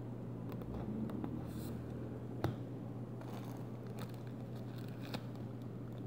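Matte white plastic card sleeves and their plastic pack being handled: soft crinkling and rustling with small ticks, and one sharp click about two and a half seconds in. A steady low hum runs underneath.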